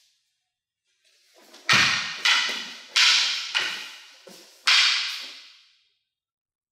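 Wooden practice swords (bokken) striking each other in a quick series of about six sharp clacks over three seconds, each one echoing before the next.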